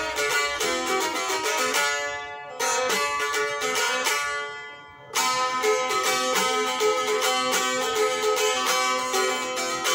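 Bağlama (Turkish long-necked saz) played solo in quick runs of plucked and strummed notes. Twice, about two seconds and about four seconds in, the playing stops and a note is left to ring and die away before the runs pick up again.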